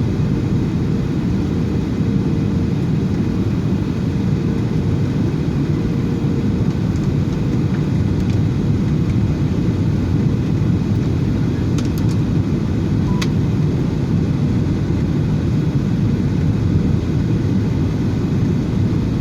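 Airliner cabin noise heard from inside the passenger cabin: a steady low rumble of engines and airflow, with a faint steady hum for the first several seconds and a couple of faint clicks about two-thirds of the way through.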